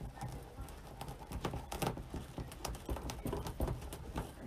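Irregular light taps and knocks, several a second, as hands gather and fold deco mesh on a craft table's cutting mat.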